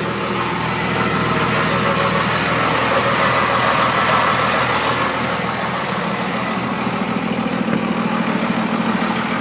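2002 Dodge Ram 2500's 5.9-litre Cummins 24-valve turbo diesel idling steadily, a little louder in the middle as it is heard close to the underside of the truck.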